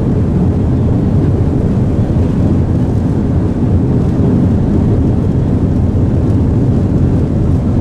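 Steady low rumble inside the cabin of an Airbus A330-300 rolling on the ground after landing: jet engine noise mixed with the rumble of the wheels on the pavement.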